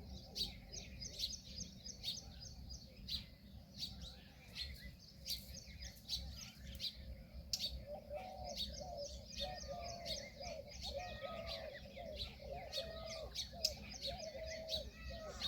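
Many small birds chirping in rapid, overlapping short notes. A lower, repeated call joins about halfway through.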